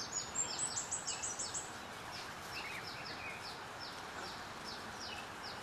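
A small bird calling: a quick run of high, downward-sliding chirps in the first second and a half, then slower chirps about twice a second, over a steady outdoor hiss.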